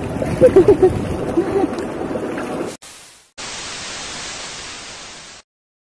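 Shallow river water rushing over rocks around wading feet, with a few brief voices. About halfway through the sound cuts off, and a hissing TV-static effect runs for about two seconds, then stops.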